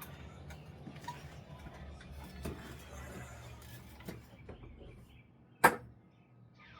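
A few faint handling ticks, then one sharp click about two thirds of the way in: a six-sided die being rolled onto a hard surface.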